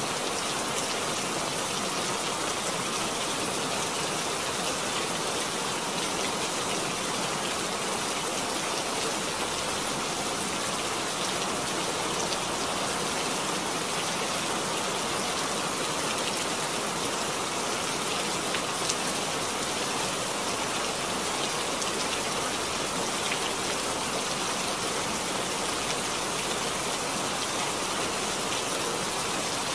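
Steady rain falling: a constant, even hiss with faint individual drop ticks here and there.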